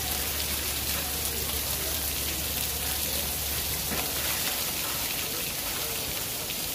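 Heavy rain mixed with hail pelting a wooden deck and the ground: a steady, dense hiss with scattered sharper ticks.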